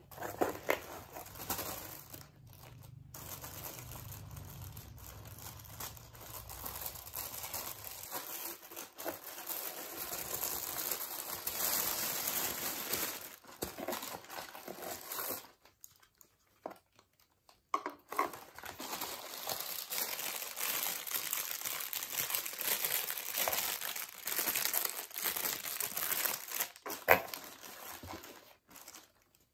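Tissue paper crinkling and rustling as hands unfold it and dig through a cardboard parcel box. A few sharp taps come through, the loudest near the end, and the sound stops briefly a couple of times.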